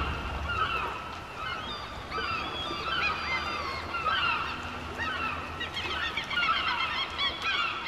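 A flock of birds calling: many short, overlapping calls, each dropping in pitch, repeating several times a second.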